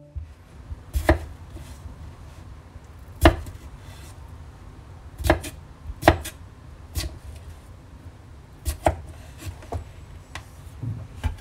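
Chef's knife dicing raw potato on a wooden end-grain cutting board: about a dozen sharp knocks of the blade striking the board, irregularly spaced, often a second or more apart.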